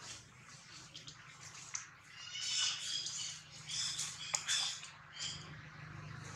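Baby macaque giving two high-pitched cries, each just under a second long, about two seconds and four seconds in, over light rustling of dry leaves.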